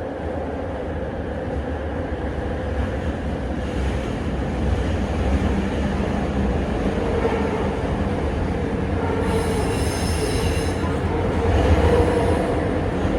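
Bombardier Innovia ART 200 metro car running at speed, a steady loud rumble that grows slowly louder. A high-pitched wheel squeal comes in about nine seconds in and lasts about a second and a half.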